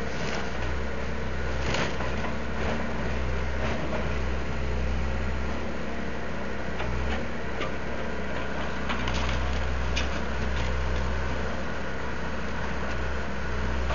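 Backhoe's diesel engine running steadily, with scattered sharp knocks and clatters over the top.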